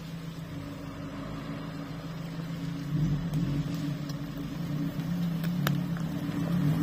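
Off-road 4x4's engine pulling at low speed while crawling over rough ground, its revs rising and falling and growing louder from about halfway. There are a couple of faint clicks near the end.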